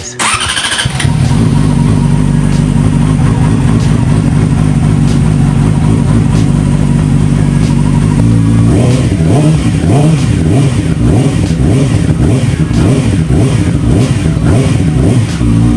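Yamaha R6 inline-four sport bike cranked on the starter, catching about a second in on its first start after sitting for about a year. It idles steadily, is given a series of throttle blips that rise and fall from about halfway through, then settles back to idle near the end.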